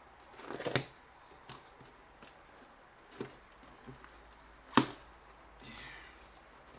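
Cardboard shipping box being torn open by hand: scattered knocks, clicks and rustles, with a sharp snap just under five seconds in.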